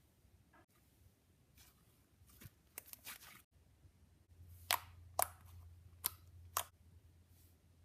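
Fluffy cotton candy slime being stretched and poked by hand, giving faint soft crackles and then four sharp clicking pops in the second half: the slime's poking sounds.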